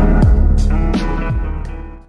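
The closing bars of a home-computer song demo with a steady drum beat, fading away over the last second.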